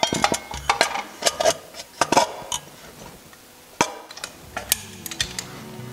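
Light metallic clinks and taps of metal engine parts being handled, as an aluminium cover is fitted onto an air-cooled Porsche engine. Background music fades in near the end.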